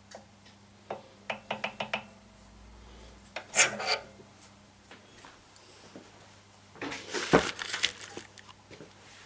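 Small metal lathe accessories being handled: a quick run of light clicks in the first couple of seconds, then two louder metal clatters as the parts are picked up and set down.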